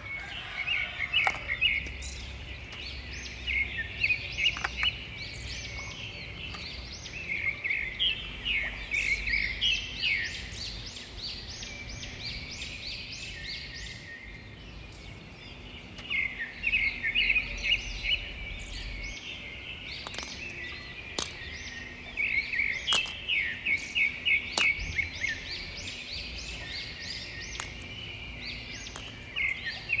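Small birds chirping in rapid runs of short high notes, coming in spells of a few seconds with quieter gaps between, over a steady high hiss. A few faint clicks.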